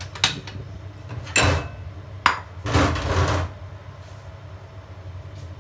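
Cookware being handled at the stove, a wok and its utensils: a few sharp knocks and clatters, and a short scraping rush about three seconds in, over a low steady hum.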